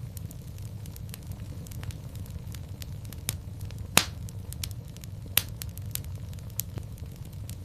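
Wood fire burning in a fireplace: a steady low rumble of flames with frequent sharp crackles and snaps. The loudest pop comes about four seconds in, and another strong one follows about a second and a half later.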